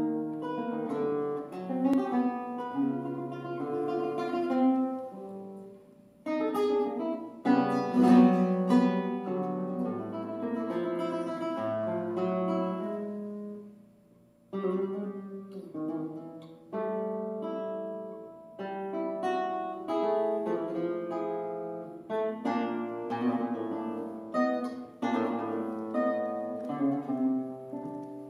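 Solo classical guitar playing a piece of plucked notes and chords that ring on, with breaks about six and fourteen seconds in where the sound dies away before the next phrase.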